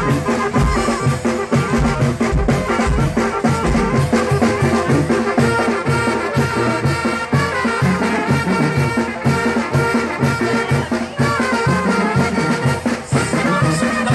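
Mexican banda brass band playing live: trumpets, saxophones and a sousaphone over a steady bass beat, a tune played for chinelos to dance to.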